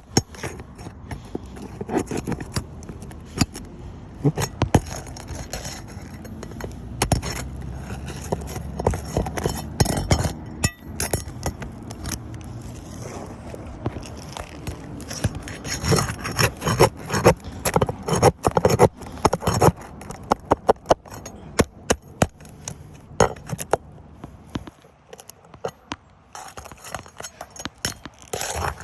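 Roofing nails being pried out of stiff, old asphalt shingles with a metal pry tool: repeated scraping with sharp metallic clicks and clinks.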